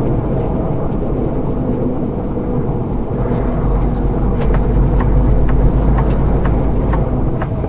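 Semi truck's diesel engine running at low speed, heard from inside the cab as a steady low drone, with a few sharp clicks and rattles.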